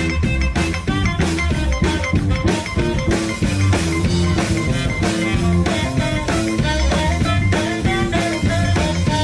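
Live rock-and-roll band playing a blues shuffle: a drum kit keeps a steady beat under electric guitars and saxophone, with a heavy bass line.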